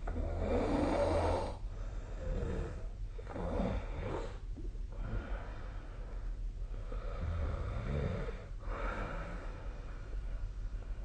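A sleeping person snoring. A strong snore at the start and another about seven seconds in, with softer snoring breaths between.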